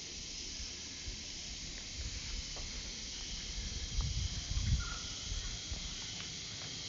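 Outdoor garden ambience: a steady high hiss, with low rumbles of wind or handling on the microphone about two seconds in and again around four to five seconds in.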